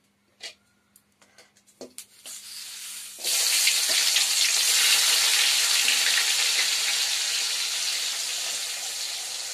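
Chopped onions going into hot ghee in a karahi, with a few light clicks first. About three seconds in, a loud sizzle starts suddenly and carries on steadily, slowly easing as the oil settles around the onions.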